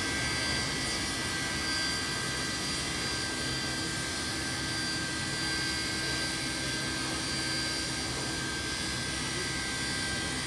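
NSW C35 class steam locomotive 3526 standing in steam, venting with a steady hiss. A few steady high tones ring over the hiss.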